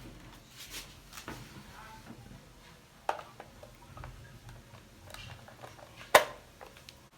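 Light scattered clicks and knocks of objects being handled, with two sharper knocks about three seconds in and about six seconds in.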